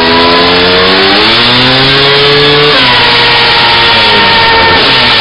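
Two-stroke dirt bike engine revving hard. Its pitch climbs steadily, drops sharply almost three seconds in, then runs on at a steadier pitch.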